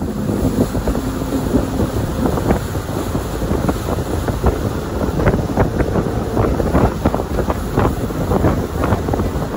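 Heavy wind buffeting the microphone aboard a small fishing boat running across open lake water, a loud rough rush with irregular gusts over the sound of the boat underway.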